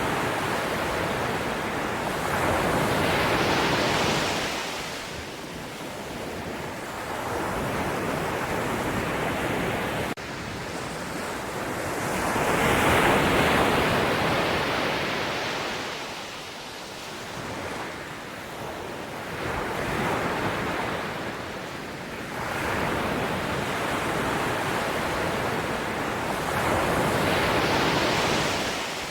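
Sea waves breaking and washing in over and over, the surf swelling and fading every few seconds.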